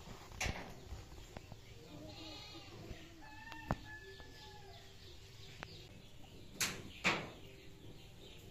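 A goat bleating twice in wavering calls, with a few sharp knocks, the loudest two close together about two-thirds of the way through.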